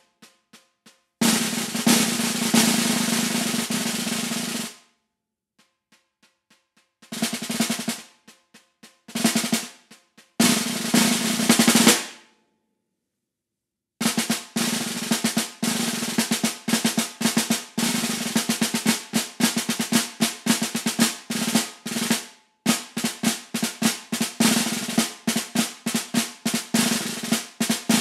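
Concert snare drum played with sticks: a loud sustained roll, then soft single strokes and short loud rolls, a pause of about two seconds, and after it a long stretch of fast strokes with regular accents.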